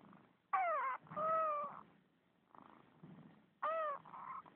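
Kitten meowing twice, each call a short falling note followed straight away by a longer held note, the second call near the end.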